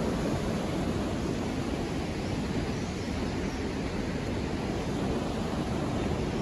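Steady rushing roar of a large waterfall, a continuous even wash of water noise with no breaks.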